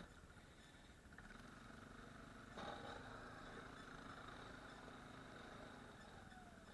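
ATV engine running faintly and steadily, with a short knock about two and a half seconds in.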